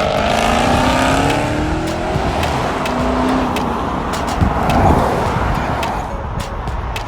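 Dodge Hellcat's supercharged 6.2-litre V8 through a Corsa Extreme cat-back exhaust, accelerating past in a flyby: the engine note climbs over the first couple of seconds, then the sound fades as the car pulls away.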